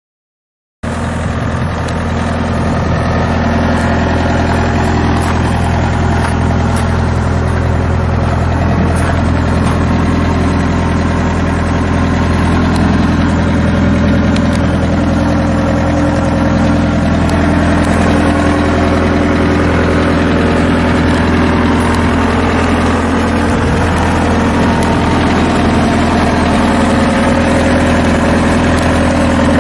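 2009 Bobcat T190 skid steer's Kubota four-cylinder diesel engine idling steadily, with an even low hum and no change in speed.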